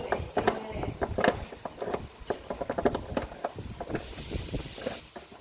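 Irregular light clicks and taps of bundled matchsticks being handled and set against each other on a board, with a short hiss about four seconds in.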